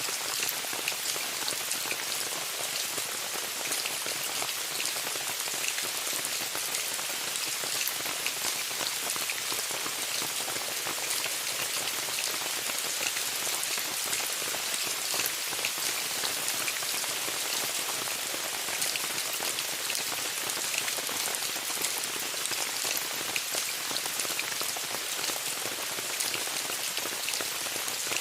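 Steady rain falling on a tent: a constant hiss thick with many small drop hits, unchanging throughout.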